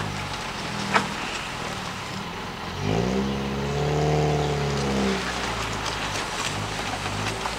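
Old Kenworth truck sleeper box dragged across dirt and gravel on a strap, giving a low pitched drone that comes and goes several times; the loudest stretch, a few seconds in, rises and then falls in pitch.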